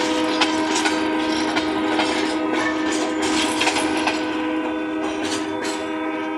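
Freight train of hopper wagons rolling slowly past, with scattered sharp wheel clicks over the rail joints and a steady pitched tone throughout. The sound eases a little near the end as the last wagon goes by.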